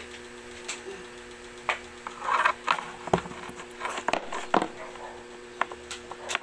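Handling noise: scattered knocks, clicks and rustles as the recording phone is picked up and moved, over a steady low electrical hum.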